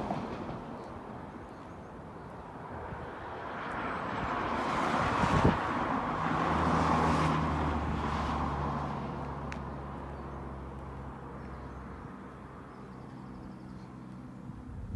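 A car going past: tyre and engine noise builds over a few seconds, with a steady low engine hum, then fades away.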